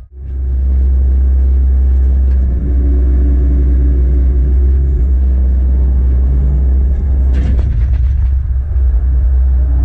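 Cat 312CL excavator's diesel engine running steadily with a low rumble, with a brief clatter about seven and a half seconds in.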